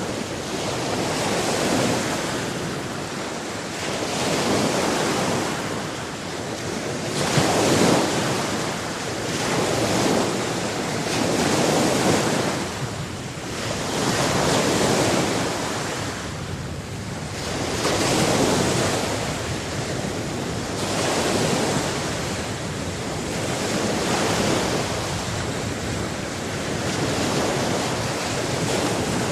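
Ocean waves breaking and washing onto the shore, the surf swelling and ebbing every three to four seconds, with the loudest wave about eight seconds in.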